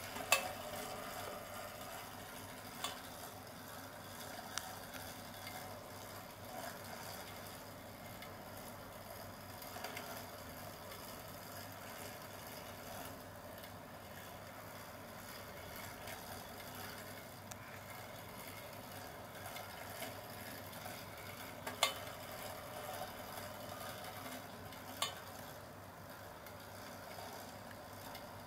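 Clockwork mechanism of a tin wind-up toy, a Fernand Martin lawyer figure, running with a steady whirring rattle, broken by a handful of sharp clicks.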